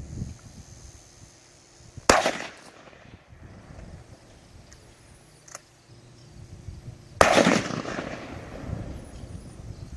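Two shotgun shots about five seconds apart, each trailing off in a short echo.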